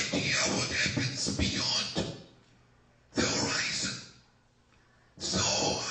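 Speech in three phrases separated by short pauses, each lasting about a second or more.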